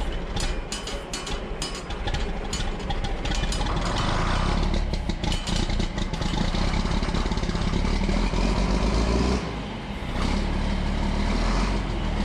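Large tractor diesel engine running just after being started on a single 12-volt battery, heard inside a metal shed. The exhaust stack's flapper cap is open. The sound dips briefly about nine and a half seconds in, then comes back.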